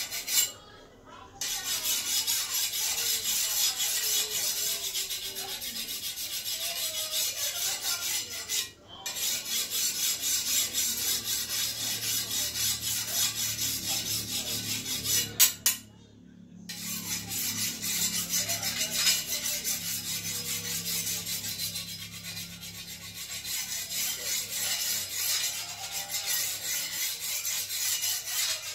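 Hand file rasping along the steel edge of a machete in quick, repeated strokes: the machete is being sharpened. The filing stops briefly three times, about a second in, near nine seconds and around sixteen seconds, with a sharp click just before the first and last of these stops.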